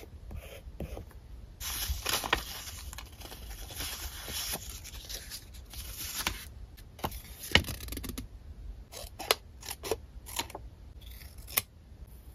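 Paper rustling and sliding as card and sticker sheets are handled. Then a run of sharp scissor snips as a paper card is cut, about eight in the second half.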